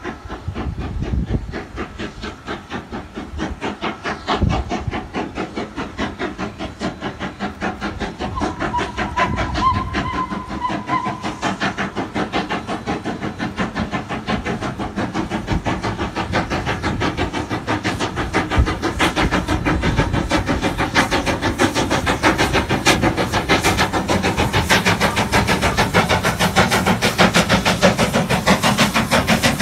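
Steam locomotive hauling its train, its exhaust chuffing in a fast, even rhythm that grows steadily louder as it draws near.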